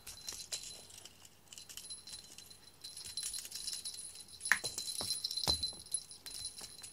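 A small jingle bell jingling steadily while a cat tussles with a feather wand toy, with a few light knocks and clicks, the sharpest about four and a half seconds in.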